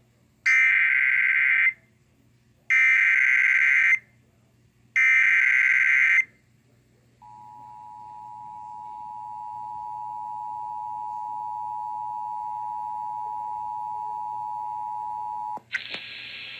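Emergency Alert System tones: three harsh screeching digital SAME header bursts about a second apart, then the EAS two-tone attention signal, a steady dual tone near 853 and 960 Hz held for about eight seconds. The attention signal signals that an emergency warning message follows. Near the end a hissing noise starts.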